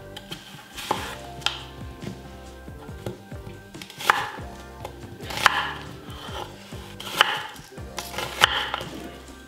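A chef's knife cutting peeled onions into large pieces on a wooden cutting board. There are about six separate crisp cuts, a second or more apart, each with the blade knocking on the board.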